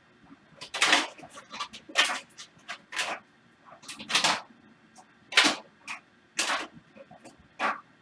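Irregular short clicks and scrapes, one or two a second, like objects being handled close to the microphone.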